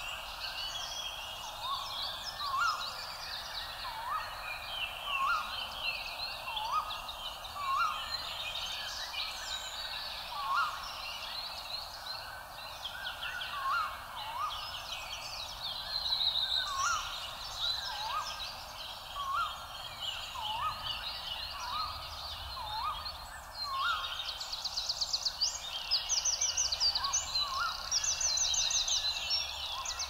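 Several birds singing at once, with dense high chirps and trills. Under them a short rising call repeats every second or two, and a fast, even rattle of notes comes in near the end.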